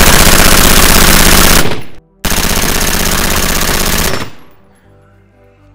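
AR-15 rifle firing two long, rapid strings of shots, each about two seconds, with a brief pause between, as sustained fire in a burndown test.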